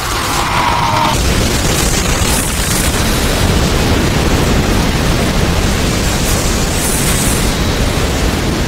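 Anime energy-attack sound effect of a giant dragon of golden aura, the Dragon Head technique, surging: a loud, continuous rushing rumble with a brighter edge in the first second.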